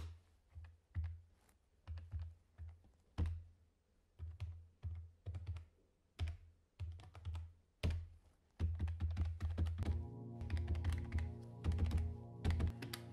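Desk calculator keys pressed in irregular taps, each with a dull thud through the desk. From about eight seconds in the taps come faster, and music with held tones comes in underneath.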